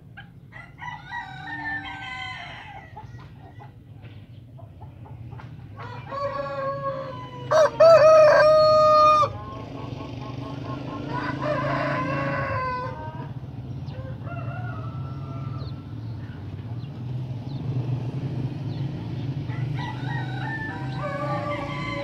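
A rooster crows about six seconds in, ending in a long held note that is the loudest sound; shorter chicken calls come near the start, around twelve seconds and near the end. A steady low hum runs underneath.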